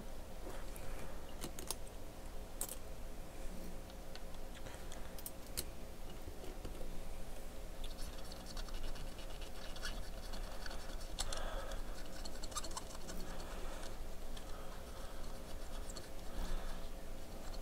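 A small brush scrubbing and scratching over a corroded circuit board to clear away corrosion residue, with scattered light clicks. The scrubbing gets busier about halfway through.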